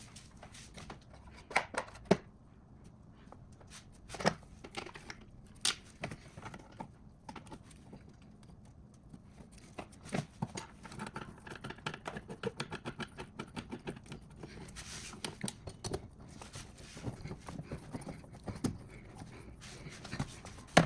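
Clicks, knocks and small clatter of hand tools and parts being handled while refitting parts on a car engine. A few sharper knocks come in the first few seconds, and denser clatter follows from about halfway on.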